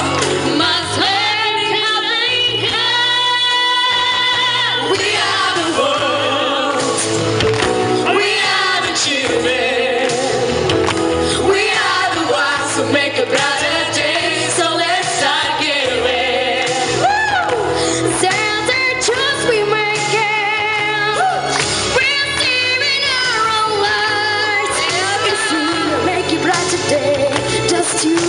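A singer performing a pop song over backing music.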